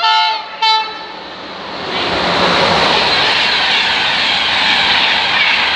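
Electric multiple unit train, likely a Class 365, sounding two short horn blasts, then running past close by with a loud, steady rushing rumble of wheels on track.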